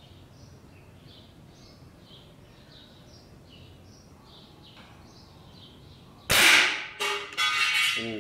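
A Mendoza Quetzalcóatl 5.5 mm (.22) nitro-piston air rifle fires a single Gamo Rocket pellet about six seconds in: one sharp, loud crack that dies away. Within the next second and a half come a second sharp crack and a burst of louder, rattling noise.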